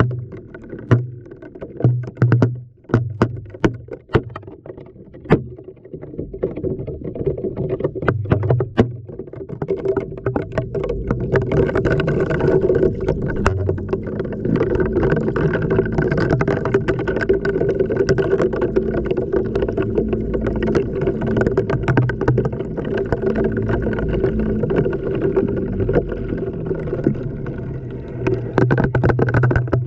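Washing machine heard from inside the drum. Sharp knocks sound as the load tumbles, over a motor hum that starts and stops. From about ten seconds in, the drum turns steadily and more loudly with a constant hum, and it goes back to short turns near the end.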